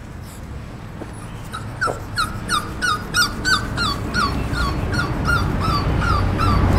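A dog whimpering: a quick, regular series of short, high cries, about three a second, starting about a second and a half in.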